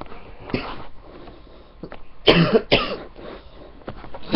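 A person coughing repeatedly, in a fit of a tormenting cough: one cough just after the start, then two strong coughs in quick succession a little past halfway, with breathing between.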